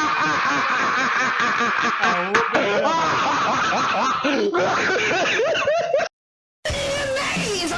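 Snickering laughter with quick rising and falling pitch, cut off abruptly about six seconds in; after half a second of silence a different clip begins.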